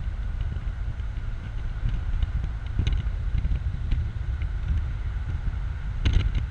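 Open-top 2004 BMW Z4 2.5i on the move: wind rumbles across the microphone over the steady running of the car's straight-six engine and tyre noise. Scattered light clicks run through it, with a short cluster of clattering about six seconds in.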